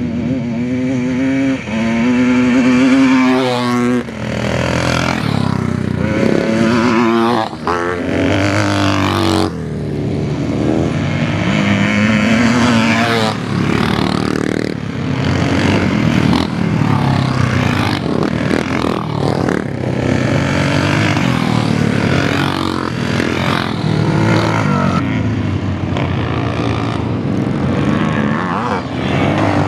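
Classic motocross bikes racing on a dirt track. Their engines rev up and fall away again and again, with several bikes heard over one another.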